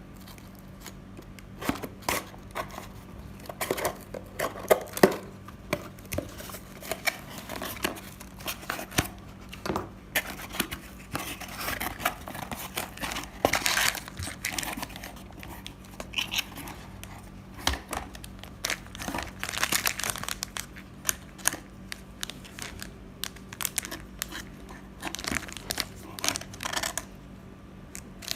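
Irregular crinkling, rustling and tearing sounds with sharp clicks, from something being handled at close range, over a faint steady hum.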